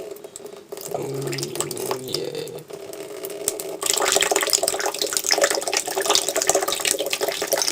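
Running water, over a steady hum, grows into a much louder rushing stream about four seconds in.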